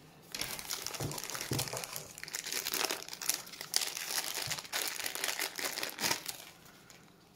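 Thin clear plastic bags crinkling as hands dig through a cardboard box of bagged toy cars and lift one out, dying away near the end.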